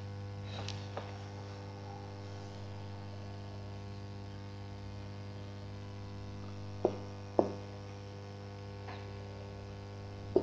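Steady low electrical mains hum with a stack of overtones. Over it are a few faint ticks and taps from a marker writing on a whiteboard, the two sharpest about seven seconds in, half a second apart.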